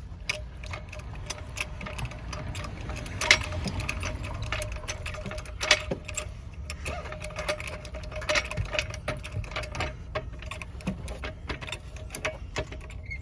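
Hydraulic car jack being pumped with a hammer used in place of its missing handle: metal clicking and knocking, with a louder knock about every two and a half seconds.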